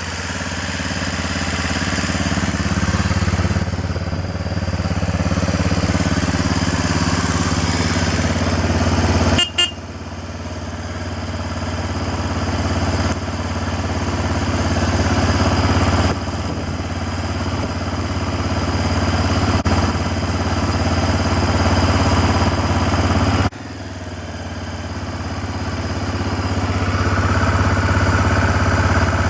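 1994 BMW F650 Funduro's Rotax single-cylinder four-stroke engine idling steadily, with two abrupt breaks in the sound, one about a third of the way in and one near the end.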